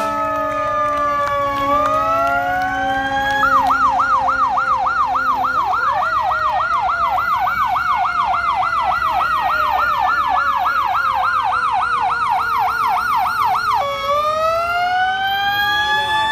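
Fire truck sirens. A slow wail switches about three and a half seconds in to a fast yelp of roughly three cycles a second, while a second siren winds up underneath and slowly falls away. Near the end the yelp gives way to rising wails again.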